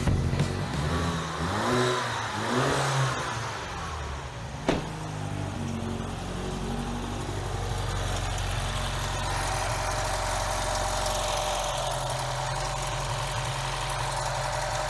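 BMW engine idling steadily with a freshly replaced PCV valve diaphragm in the valve cover. The whistle that the torn diaphragm caused is gone. A sharp click comes about five seconds in.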